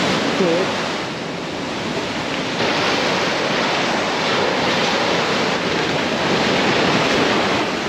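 Shore-break waves breaking and washing up the sand in a steady rush.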